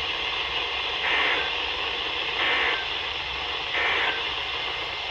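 Weather radio receiver giving a steady static hiss during the dead air between broadcast messages. The hiss swells briefly three times.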